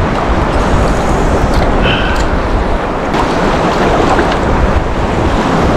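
Gulf surf waves washing and water sloshing around a wading angler, with wind buffeting the microphone.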